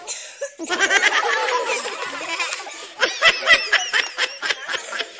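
A group of children laughing and calling out together, many high voices overlapping, with the loudest bursts about a second in and again around three seconds in.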